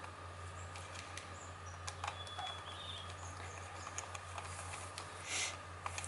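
Faint scattered clicks and light scrapes of a screwdriver working at the throttle linkage of an Echo chainsaw's carburetor, with one short scrape about five seconds in, over a steady low hum.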